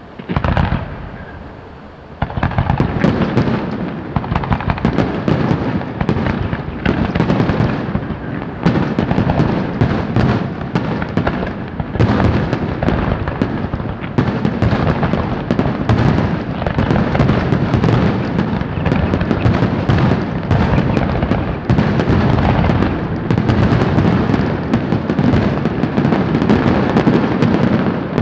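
Aerial firework shells of a large display bursting. There is one bang right at the start, then from about two seconds in a dense, continuous barrage of booms and sharp bangs that overlap without a break.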